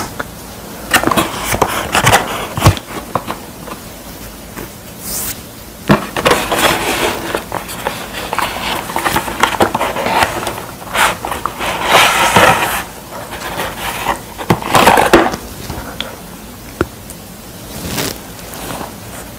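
Cardboard pizza box being handled and opened, the carton scraping and rustling as the pizza is slid out, in several bursts of a second or more with a few sharp clicks between them.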